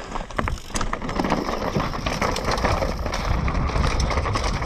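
Mountain bike descending a rocky dirt trail at speed: tyres crunching over stones and loose ground, with a constant run of clicks and rattles from the bike over the bumps.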